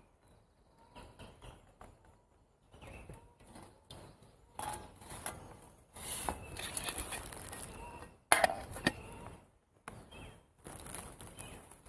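Crinkly rustling of a Tyvek bivvy bag and clothing as someone shifts and handles things inside it, with a sharp clink of a metal camping pot about eight seconds in, the loudest sound.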